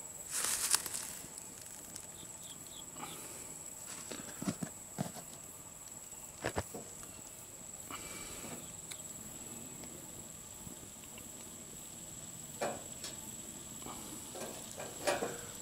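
Dough pocket pies frying in a little oil in a pan: a faint, steady sizzle, with a few scattered clicks and knocks of the pan and pies being handled, the sharpest about a second in.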